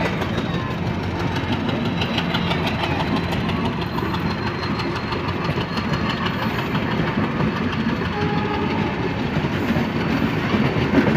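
Passenger coaches of a Bangladesh Railway intercity train rolling past close by, a steady noise of steel wheels running on the rails.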